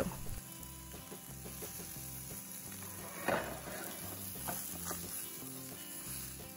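Adobo-marinated white fish fillets sizzling softly in an oiled nonstick frying pan while a slotted metal spatula lifts them out, with a brief louder knock about three seconds in. Soft background music plays underneath.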